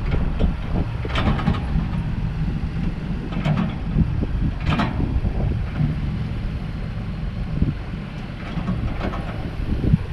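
A vehicle engine running as a steady low rumble, with a few short, higher-pitched sounds about 1, 3.5, 5 and 9 seconds in.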